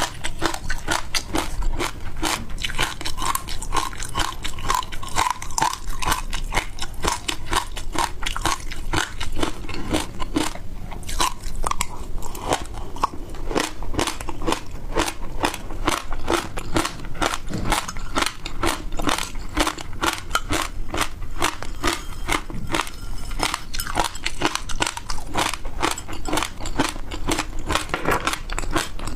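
Close-miked biting, crunching and chewing of frozen food: a continuous run of many crisp crackling crunches.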